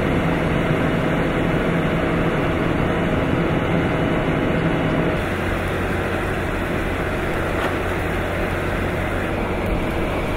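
Strong typhoon wind and rain making a steady noise: the early winds of an approaching super typhoon picking up. A steady low hum runs under it and stops about five seconds in.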